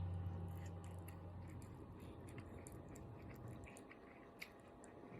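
Someone chewing spicy ramen noodles: faint, irregular mouth clicks. A low hum fades out over about the first second.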